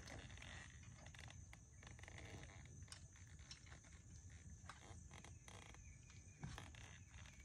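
Near silence: faint outdoor background with a steady high hiss, and a few soft, scattered clicks of the bike's included hex tool working the handlebar stem bolts of a Woom 5 kids' bike.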